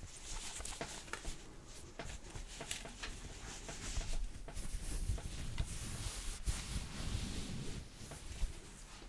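Woven fabric zipper pouch handled close to the microphone: cloth rustling and scratching with many small irregular clicks and a few soft bumps.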